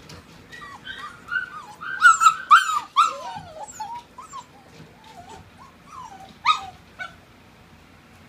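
Eight-week-old Siberian Husky puppies whining and yipping in short, rising and falling calls, busiest and loudest about two to three seconds in, with one sharp yip about six and a half seconds in before they fall quiet near the end.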